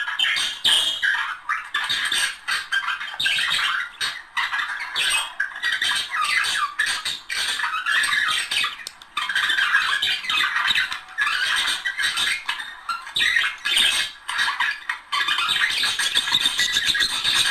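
A pair of budgerigars warbling and chattering without pause: a dense stream of rapid chirps, squawks and clicks.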